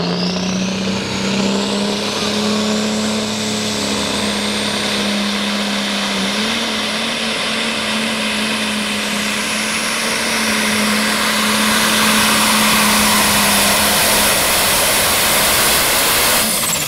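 Turbocharged pulling tractor engine at full power on a pull. It runs hard and steadily with a high turbo whine that rises sharply at the start and then holds. Just before the end the level drops and the whine falls away as the throttle comes off.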